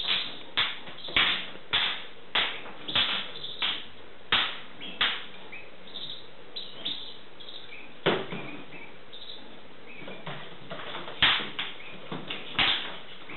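Sharp taps and knocks from a jackdaw and a magpie pecking and scuffling in a wire cage. They come about one every half second at first, then scattered, with a cluster near the end.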